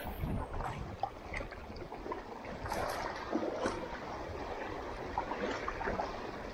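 Small sea waves lapping and sloshing against shoreline rocks: a steady watery wash with scattered small splashes and trickles.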